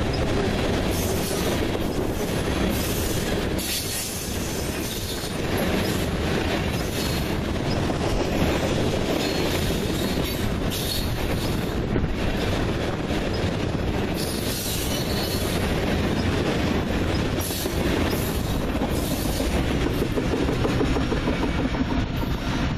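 Railroad tank cars of a freight oil train rolling past at speed: a steady rumble of steel wheels on rail, with repeated clacks as the wheels cross rail joints.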